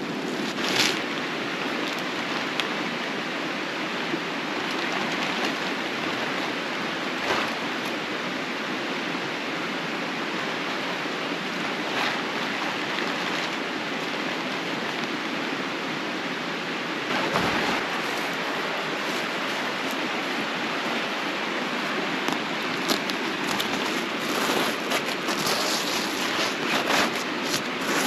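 Steady rushing of a nearby creek, with a few scattered knocks and a cluster of brief clattering sounds near the end.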